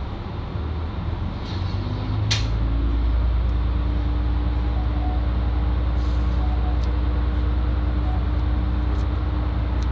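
Isumi 350 diesel railcar: a short sharp hiss about two seconds in, then the diesel engine's low drone comes up in strength and holds steady under a steady hum.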